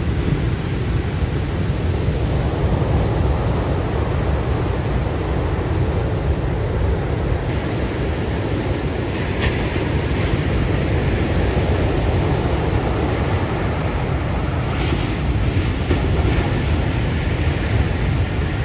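Ocean surf washing and breaking, a steady wash of noise with a heavy low rumble from wind buffeting the microphone.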